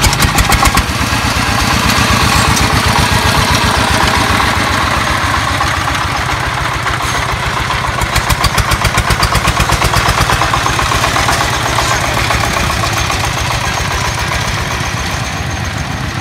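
Two-wheel 'công nông' tractor's single-cylinder diesel engine running under load, hauling a trailer of firewood: a fast, even chugging beat, a little louder a few seconds past the middle.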